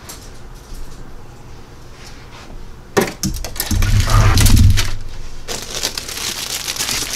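Plastic model-kit sprues and their cellophane bags being handled off camera: a sharp click about three seconds in, a dull low rumble of handling, then crinkling rustles of plastic toward the end.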